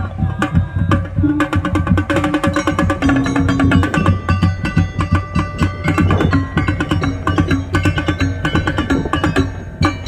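A non-brass drum band playing: rapid drum strokes under a melody on pitched instruments.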